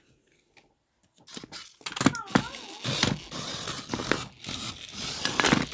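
Plastic toy battle robots scraping and clattering against each other, with sharp knocks and their small gear motors whirring; it starts about a second in after near silence.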